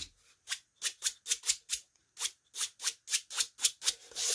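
A stiff-bristled paintbrush is dry-brushed back and forth over scrapbook paper on a cardboard tube, giving quick scratchy strokes about three a second with a short pause near the middle. This is the up-and-down pass of a crosshatch that ages the paper.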